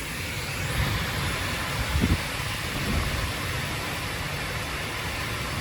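Heavy wind-driven thunderstorm rain, a steady rushing noise of downpour, with two brief low thumps about two and three seconds in.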